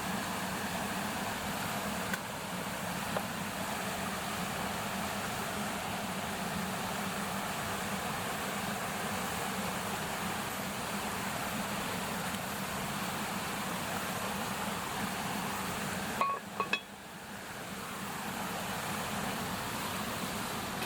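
Sausages sizzling on a grill over a wood fire: a steady hiss with a few light clicks, and a couple of sharper metal clinks near the end, after which the sound dips briefly and swells back.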